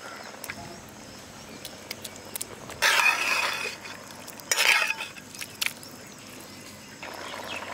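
A metal ladle stirring lobster meat into bubbling masala gravy in an aluminium pot. There are two louder stretches of stirring against the pot, about three seconds and four and a half seconds in, with light clinks between them.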